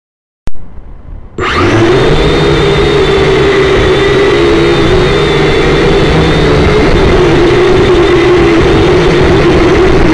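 Kyosho Quattrox EYE toy quadcopter's electric motors and propellers running with a loud, steady hum and whine, picked up close by its own onboard camera. A click comes about half a second in, and the motors come up to full speed about a second later.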